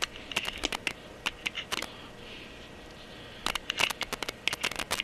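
A Goldenrod pump oil can being pumped: two quick runs of light, sharp clicks, the second starting about three and a half seconds in.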